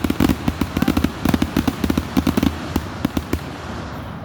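A rapid, irregular string of loud, sharp bangs, several a second, thinning out near the end.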